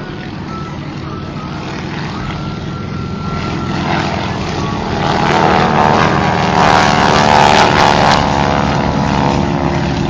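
Propeller aircraft engine running and growing steadily louder as it comes nearer, loudest about seven seconds in, then easing off a little.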